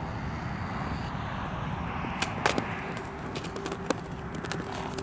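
A gaited horse's hooves striking frozen, snow-covered ground: a run of sharp, irregular clicks starting about two seconds in. Steady wind noise on the microphone runs underneath.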